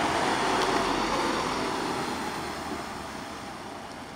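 A road vehicle driving past, its engine and tyre noise loudest about a second in and then fading as it moves away.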